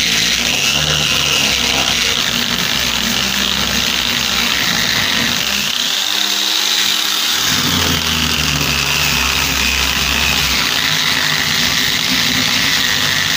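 A DEKO 125 mm angle grinder runs with a sanding disc pressed to a painted tabletop, grinding the green paint off. Its steady, loud whine rises in pitch around the middle and settles lower again.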